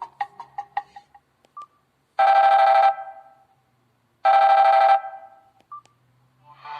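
Samsung Solid Xcover 2 preloaded ringtones playing through the phone's speaker. The last notes of a plucked melodic tone fade out, then a telephone-style ringtone gives two short, buzzy trilled rings about two seconds apart. The next, electronic ringtone begins near the end.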